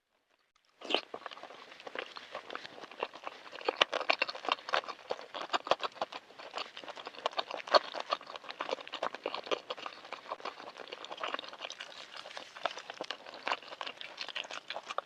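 Close-miked chewing and wet mouth sounds of someone eating balut (boiled fertilized duck egg): a dense, irregular run of small smacks and clicks that starts about a second in.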